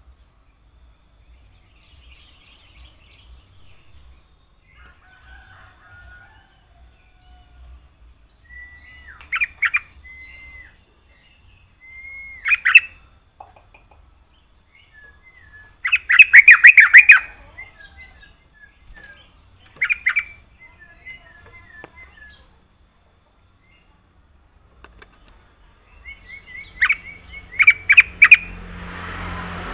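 Sooty-headed bulbul (trucukan) singing: about five loud, short bursts of rapid sharp notes, the longest and loudest about halfway through, with soft chattering notes in between.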